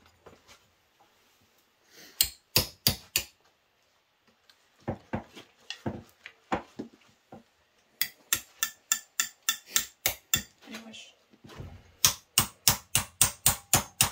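Ball-peen hammer striking a small sheet-steel rose petal against a wooden stump, in runs of sharp metallic blows: a few at first, then lighter taps, then fast even runs of about four blows a second. The blows stretch the middle of the petal to cup and curl it.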